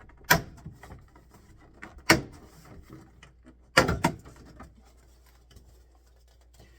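Sharp knocks and clunks of a small door being handled and taken off, four loud ones with light clicks and rattles between.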